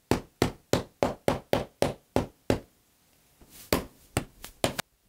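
Raw meat cutlets being pounded thin on the counter: a quick run of about nine knocks at three or four a second, a pause of about a second, then about five more blows in quick succession.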